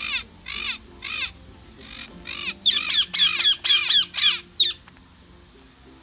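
A bird giving a series of short, harsh squawking calls, each bending down in pitch. There are a few spaced calls, then a quicker, louder run of about seven that stops near the five-second mark.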